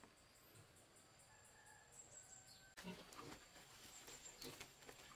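Quiet forest background with faint, thin, high chirps from birds and insects. About three seconds in, soft rustling and light knocks start as people move through leafy undergrowth and handle a woven basket.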